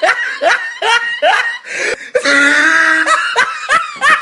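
Hearty human laughter: a run of short 'ha' bursts, each falling in pitch, about three a second, then a longer held laugh around the middle and a quick run of bursts near the end.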